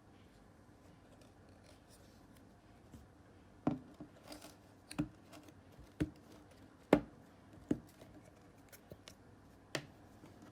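Clear slime being handled, making about six sharp clicking pops roughly a second apart, the loudest around the middle.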